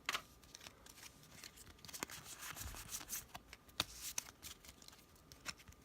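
Pokémon trading cards being handled and slid past one another by hand: faint scattered clicks and soft rustles of card stock, with a short burst of rustling about halfway through.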